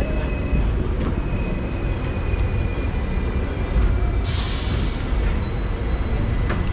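Hong Kong double-decker tram running along its tracks: a steady rumble with a faint high whine, and a short hiss about four seconds in.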